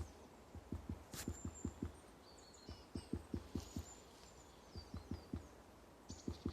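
A woodpecker tapping on a pine trunk: dull, irregular knocks in short runs of several a second, with pauses between runs. Small birds chirp faintly at a higher pitch between the knocks.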